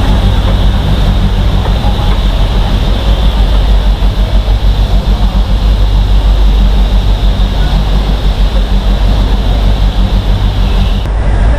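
Neral–Matheran narrow-gauge toy train running along the track, heard from on board as a loud steady rumble.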